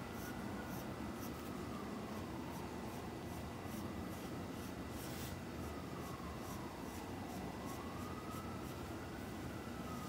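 Graphite pencil scratching on paper in short repeated strokes as a circle is drawn. A siren wails slowly up and down in the background.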